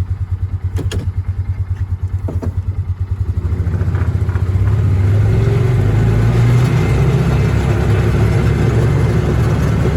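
Polaris Ranger side-by-side's engine running as it drives, at first with a low pulsing beat, then picking up speed about four seconds in and running louder and steadier.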